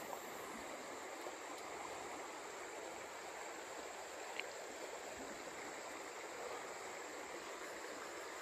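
Shallow river water flowing steadily, an even rush with a single faint tick about four seconds in.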